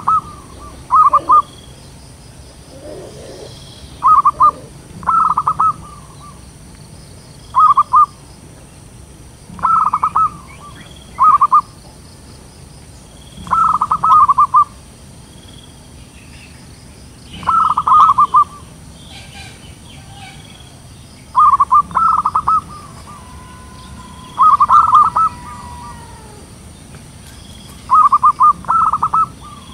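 Zebra dove cooing: loud, short, rapidly pulsed coos, often two close together, repeated every two to four seconds.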